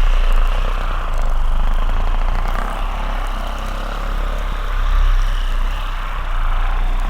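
Handheld electric massage vibrator running against the leg muscles with a steady motor hum, its level swelling and easing every couple of seconds.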